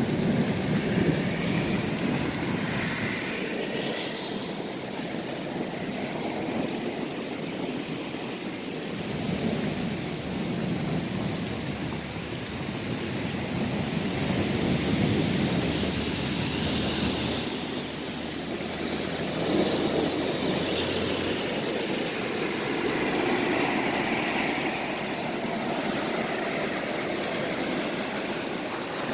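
Hail storm: hailstones and heavy rain pelting down in a dense, steady hiss that swells and eases.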